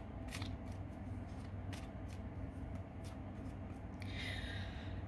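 A deck of tarot cards being shuffled by hand: a few soft clicks of cards tapping and slipping against each other, then a longer, brighter rustle of cards sliding near the end.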